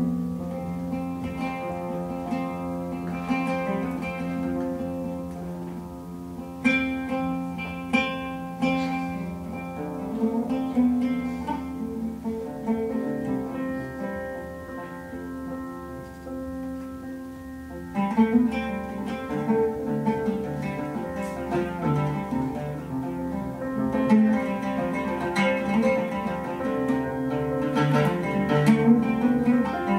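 Oud being plucked, with a melody of picked notes over held, sustained tones from the ensemble; the playing grows denser and louder about 18 seconds in.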